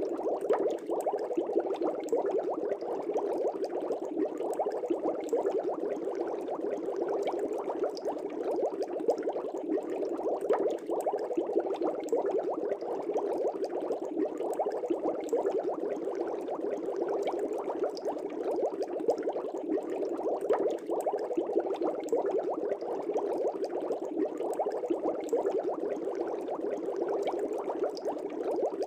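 Aquarium air bubbles rising and breaking at the water's surface, a steady dense bubbling with many small pops.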